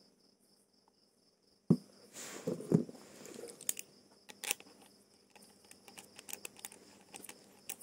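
Parts of a Viking fishing reel being handled and fitted by hand during servicing: a sharp click about 1.7 seconds in, then many light clicks and taps. A cricket chirps faintly in the background.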